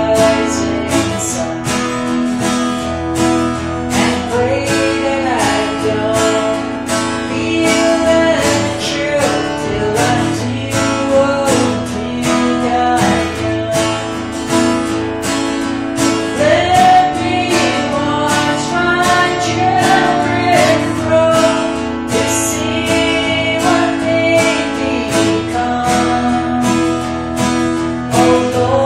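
A country song played on a strummed acoustic guitar at a steady beat, with a sung melody gliding over it.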